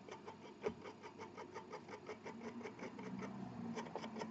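Fast, even ticking, about six ticks a second, with one sharper click near the start, as freshly built vape coils on a rebuildable dripper deck are dry-fired on a Coil Master 521 Tab and pinched with a metal tool.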